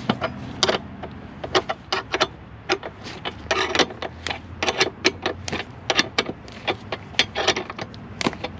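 Box-end wrench tightening a seat-bracket bolt to the car floor: a run of quick, uneven metallic clicks, several a second, as the wrench is worked in short strokes.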